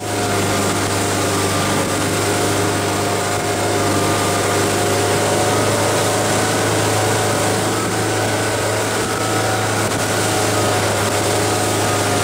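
Tow boat's engine running steadily at speed, a constant low hum with steady higher tones, over the rushing of water churned up in the wake.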